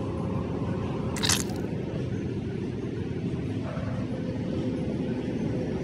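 Steady low rumble of city traffic heard from high up, with one brief hiss about a second in.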